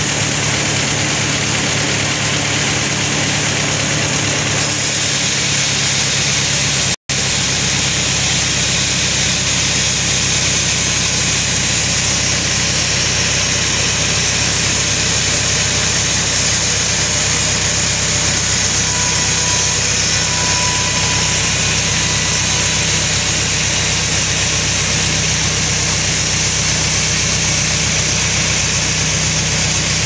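Vertical band sawmill running steadily, with its drive humming under the noise of the blade as it rips a large albasia log lengthwise. The sound cuts out for an instant about seven seconds in.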